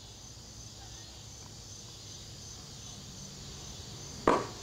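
Insects chirping steadily in a quiet outdoor background, a high pulsing tone typical of crickets. About four seconds in comes a single sharp knock.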